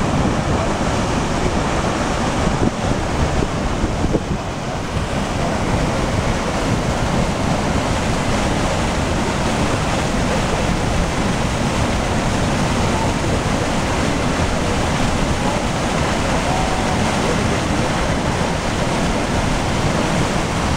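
Power-station cooling water, about 180 cubic metres a second, pouring into a 7-metre morning glory spillway: a steady, loud rush of churning, foaming water.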